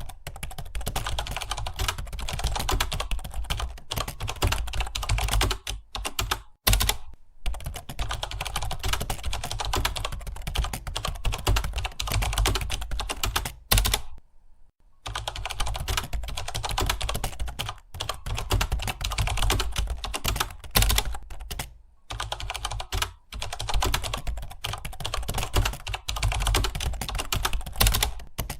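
Fast, continuous typing on a computer keyboard: a rapid stream of key clicks, broken by short pauses about seven seconds in and again about fourteen seconds in.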